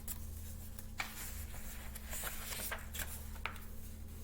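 A paperback picture book being handled and its page turned: faint paper rustling with a couple of soft clicks, over a steady low hum.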